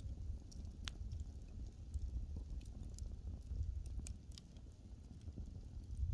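Wood fire crackling, with scattered small pops and one sharper pop about a second in, over a low steady rumble.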